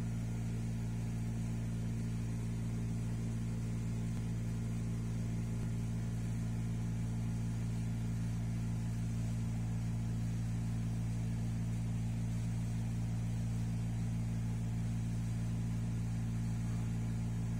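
A steady low hum made of several fixed low tones, unchanging throughout.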